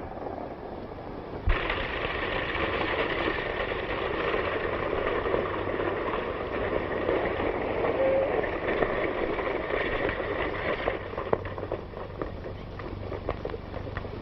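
Horses galloping, hoofbeats with a stagecoach's wheels rumbling along a dirt road. Heard on a hissy old film soundtrack.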